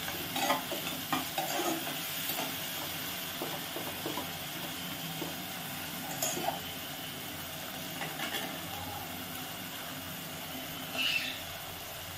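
Onion, green peas and tomatoes sizzling as they fry in oil in a pot, with a spatula stirring and scraping against the pot now and then.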